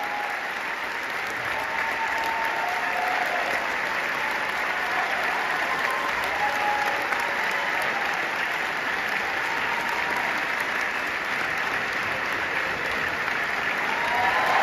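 A large audience applauding steadily, with a few voices calling out faintly over the clapping. The applause swells near the end.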